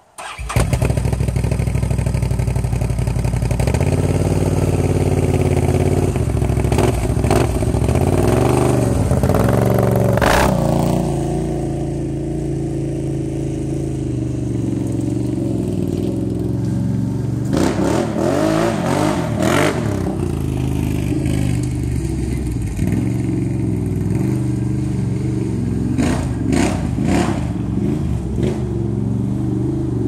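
The V-twin engine of a 2013 Can-Am Outlander 800R ATV fitted with an HMF slip-on exhaust starts up suddenly and then runs. The throttle is blipped several times: about ten seconds in, again around eighteen to twenty seconds, and twice more near twenty-six seconds.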